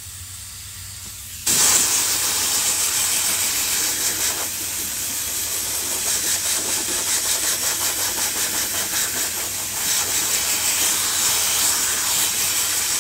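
Air-fed spray gun spraying contact adhesive: a loud steady hiss that starts abruptly about a second and a half in and eases off briefly twice.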